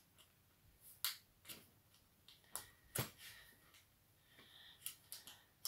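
Scattered soft clicks and light handling noises as a bag strap and its small clasp are fiddled with by hand, about seven separate clicks spread through a quiet room.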